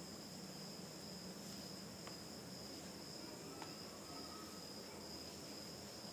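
Quiet background with a steady high-pitched whine over a low hum, and a few faint ticks of yarn and scissors being handled.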